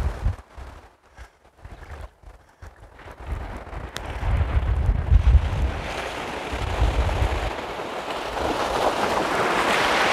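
Wind buffeting the microphone in gusts over small waves breaking and washing up a pebble beach. The surf grows louder through the second half.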